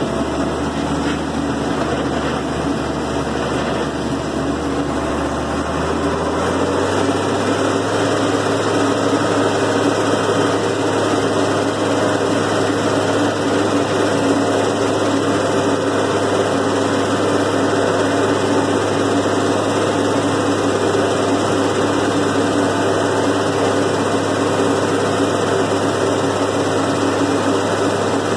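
Farm tractor's engine running steadily under way, heard from inside the cab, with a slight change in its low note about six seconds in.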